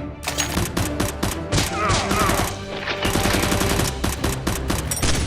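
Rapid bursts of automatic gunfire starting a moment in, over background music.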